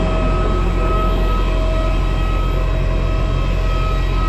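Steady low drone inside a COBUS airport apron bus, its engine and air conditioning running, with a constant high whine over it.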